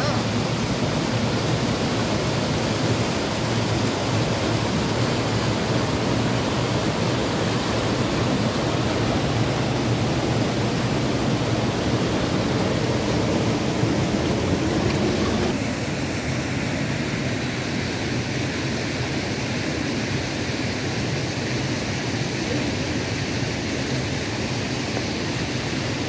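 River water rushing over rocks: a steady, loud rush. A little past halfway it shifts in tone and gets slightly quieter.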